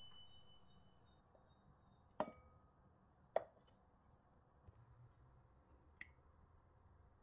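Near silence. A high ringing tone fades out in the first second, then three short sharp clicks follow, about two, three and a half, and six seconds in.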